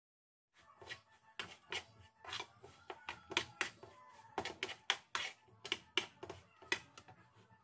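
A metal utensil tapping and scraping against a frying pan as food is stirred, with irregular sharp clicks about two or three a second, starting about half a second in.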